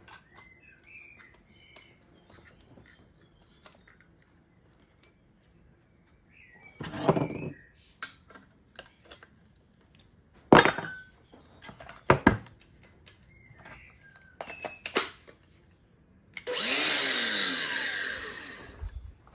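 Scattered knocks and clicks of parts and tools being handled, then near the end a handheld power tool runs for about two and a half seconds, its motor falling in pitch as it winds down.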